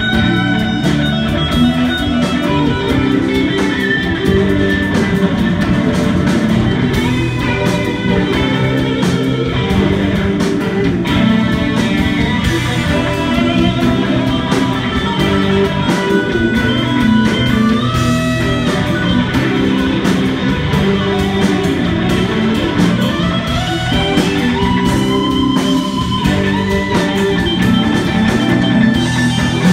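Live instrumental rock band: an electric guitar plays a lead line over a second guitar, electric bass and drum kit, with bent, gliding notes a few seconds before the end.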